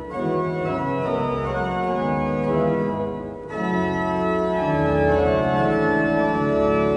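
The grand organ of Notre-Dame de Paris playing sustained chords on its foundation stops (jeux de fond), the full-toned flue pipes that speak through a mouth. The chord changes with a brief dip about three and a half seconds in.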